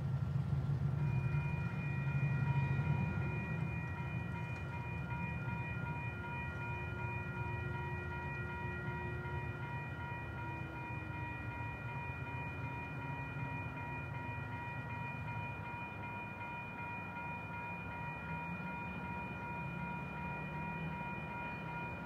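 Metra commuter train passing a grade crossing: a low rumble of the cars on the rails, loudest in the first few seconds and then steady. Crossing bells ring over it as steady high tones.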